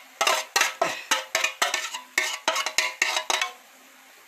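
Frying pan clinking and knocking as it is handled on the stove: a quick, irregular run of sharp metallic knocks, about four a second, that stops about three and a half seconds in.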